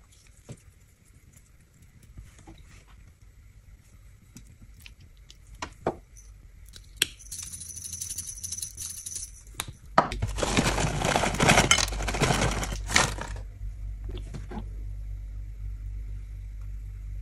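Garnishing a plate of pad thai: light taps as spring onions drop onto the plate, a shaker bottle rattling over it, then a louder rattling scatter lasting about three seconds as peanuts go on. A low steady hum follows near the end.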